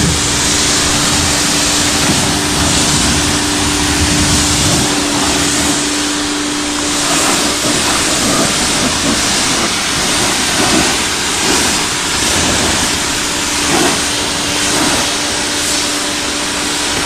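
Electric pressure washer spraying: a steady hiss of water jet and spray, over the hum of its motor and pump, which drops out about seven seconds in and comes back near the end.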